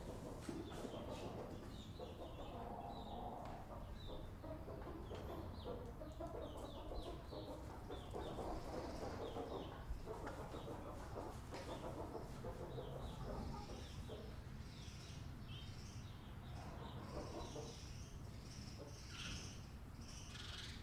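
Chickens clucking and calling inside a barn, many birds at once, with short higher-pitched chirps and calls over a steady low background hum.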